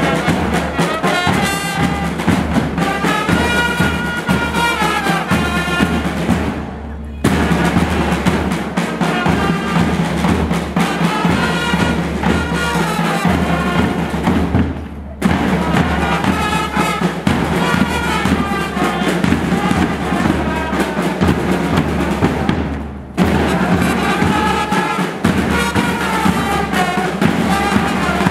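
School marching band playing: sousaphones and trumpets carry a melody over bass and side drums. The music breaks off for a moment three times, about eight seconds apart.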